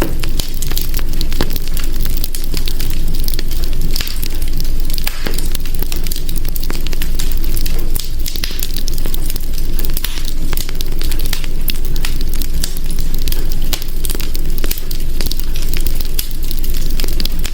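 Wood fire in a hearth burning with a steady low rumble and hiss, with frequent sharp crackles and pops.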